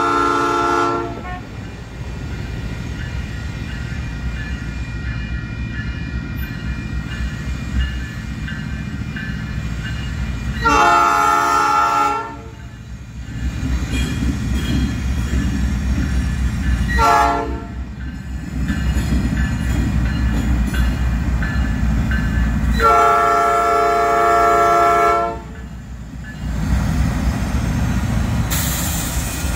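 Norfolk Southern GE C44-9W diesel locomotive sounding its horn in the grade-crossing signal, long, long, short, long, over the rising rumble of its engine and train as it approaches. A high squeal, from the wheels, starts near the end.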